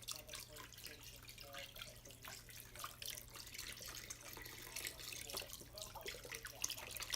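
Chicken broth being poured into a crock-pot, a faint, continuous splashing and trickling of liquid into liquid.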